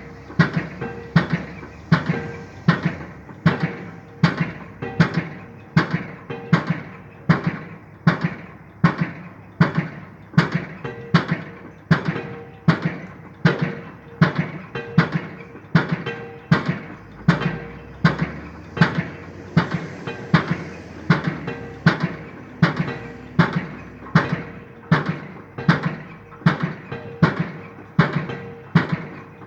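Pile driver hammer striking a pile in a steady rhythm, roughly three blows every two seconds, each blow ringing briefly, over a steady hum.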